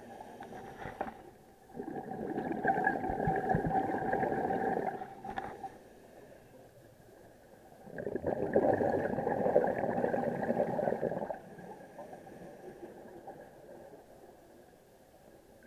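Scuba regulator exhaust underwater: two long bursts of exhaled bubbles a few seconds apart, the rhythm of a diver's breathing, with quieter pauses between them.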